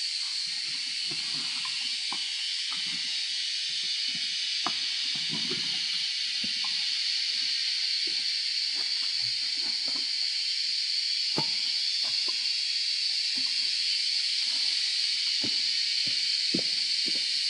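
Footsteps and rustling on dry leaf litter, with a few sharp snaps, under a steady high-pitched hiss that is the loudest sound throughout.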